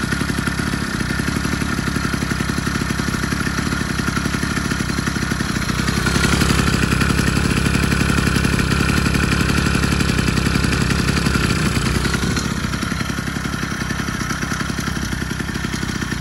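Two-stroke bicycle engine kit running steadily with a fast, even beat. It grows louder from about six seconds in until about twelve seconds, then settles back.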